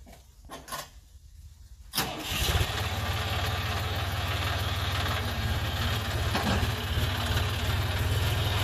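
John Deere 5036D tractor's three-cylinder diesel engine starting suddenly about two seconds in, then running steadily with a deep, even hum.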